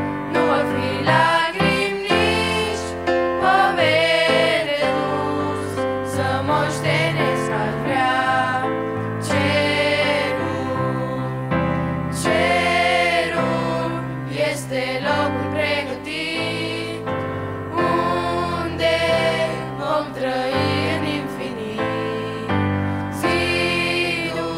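A youth vocal group of boys and girls singing a Christian hymn together into microphones, over keyboard accompaniment.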